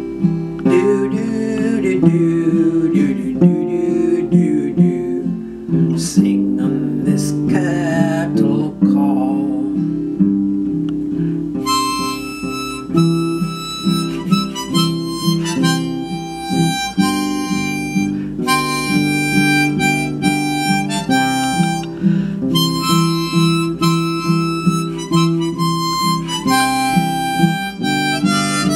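Instrumental break of an old 1934 western song recording: a strummed acoustic guitar keeps a steady rhythm under a harmonica playing the melody.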